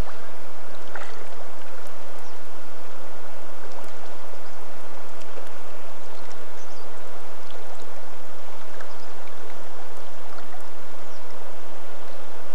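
River water flowing steadily: an even, unbroken rush of current.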